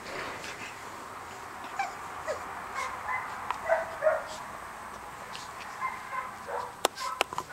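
Rough collie puppy giving a few brief yips and whimpers as it plays, over a steady hiss, with a few sharp clicks near the end.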